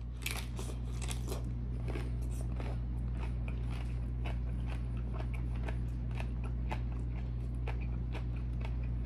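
A person biting and chewing a crisp shrimp ceviche tostada: many quick, irregular crunches of the fried tortilla shell, with the first bite right at the start. A steady low hum runs underneath.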